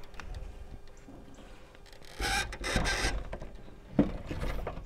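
A steel walk-behind lawnmower being tipped onto its side on a wooden table: its wheels and deck scrape and rub against the boards, with a sharp knock about four seconds in.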